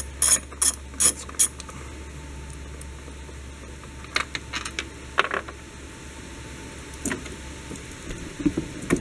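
Socket ratchet wrench clicking in quick even strokes, about three a second, while a battery tray bolt is worked. The ratcheting stops about a second and a half in, followed by a few scattered light clicks of the tool on metal.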